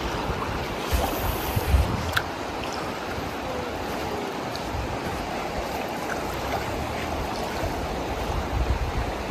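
Steady rush of a flowing river with small waves lapping at a sandy shore. A few low thumps in the first two seconds.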